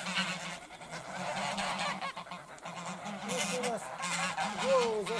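A flock of grey domestic geese honking, many calls overlapping and growing louder over the last couple of seconds. The geese are agitated and going on the attack against a passing cyclist.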